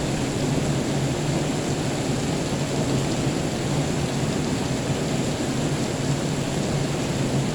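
Steady rain with a continuous low rumble of thunder, even throughout with no sharp claps.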